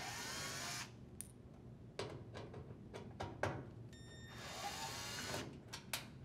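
Cordless drill driver backing out two small screws from a dryer's front panel plate: one short run at the start and another about four seconds in, with a few sharp clicks between them.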